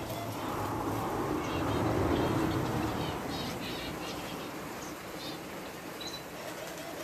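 Small aviary birds chirping in short high calls scattered throughout, over a steady machine hum from the aviary's fans and misting system. The hum swells briefly about two seconds in, then eases off.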